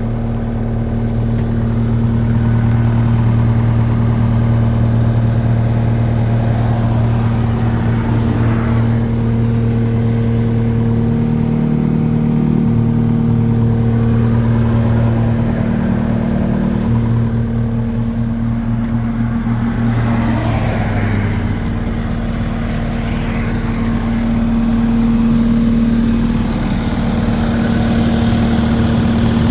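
New Holland L228 skid steer's diesel engine running steadily, its pitch shifting a few times as the machine is worked, with a couple of brief rushing noises about a third and two-thirds of the way through.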